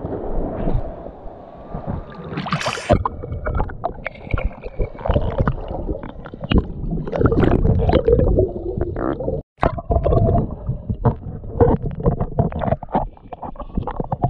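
Seawater sloshing around a handheld action camera at the surface, then a splash as the camera goes under about two and a half seconds in, followed by muffled underwater rumbling with many small knocks and clicks. The sound drops out for a moment about halfway through.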